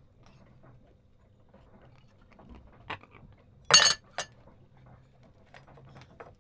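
Dishes and cooking utensils clinking in a small boat galley: a few light knocks, then a loud sharp clatter a little before the four-second mark and one more clink just after, over a faint low hum.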